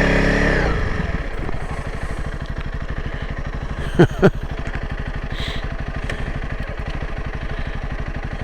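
Motorcycle engine coming off the throttle about a second in and settling to a steady, evenly pulsing idle. Two quick sharp clicks about four seconds in.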